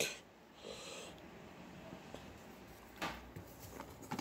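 Faint rustling and light clicks of grey plastic miniature sprues being handled and set down among other sprues in a cardboard box, with one sharper click about three seconds in.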